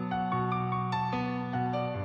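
Soft instrumental background music: a slow melody of held notes over sustained chords.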